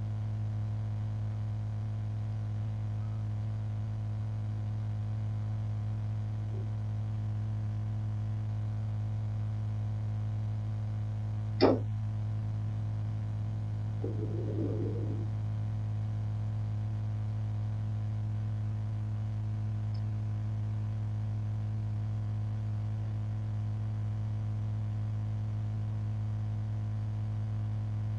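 Steady low electrical hum, like mains hum picked up in the recording, with a single sharp click about twelve seconds in.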